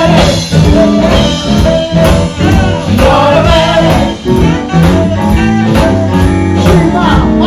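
Live band playing, with a man singing lead and women singing backing vocals over a steady beat.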